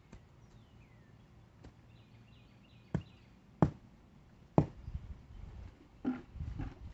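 Three sharp knocks, each a little over half a second to a second apart, then a run of dull low thumps and scraping, from work at the base of a wooden fence post being set in the ground.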